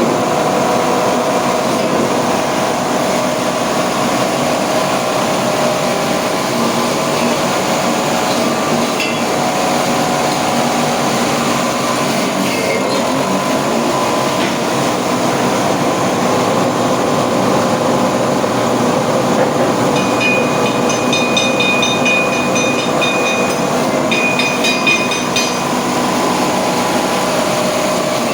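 Coconut milk press machine with a coupled grater, driven by a 2 hp electric motor, running with a loud, steady mechanical hum. About twenty seconds in, a high steady squeal sounds for a few seconds, breaks off briefly, and comes back before stopping.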